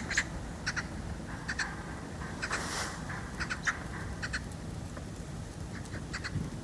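Short bird calls in clusters of two or three, repeated several times, over a steady low background noise.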